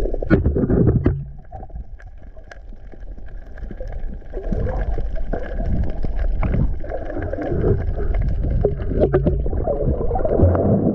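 Muffled underwater noise picked up by a diving camera: a low rumble and slosh of water movement that drops quieter about a second in and builds back up, with scattered sharp clicks and knocks.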